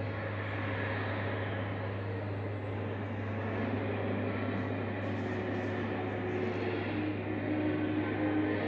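Steady indoor room noise: a constant low hum under an even hiss, with a few faint steady tones joining near the end.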